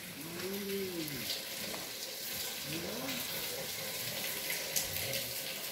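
Steady rushing hiss of running water, with a voice calling out briefly twice.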